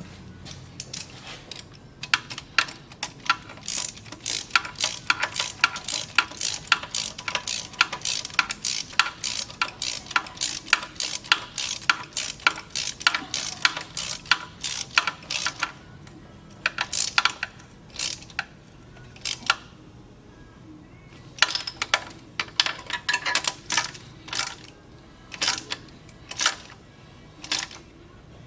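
Hand tools and small metal parts being worked, with many sharp metallic clicks and clinks at about two or three a second, a pause of a few seconds past the middle, then more clicks.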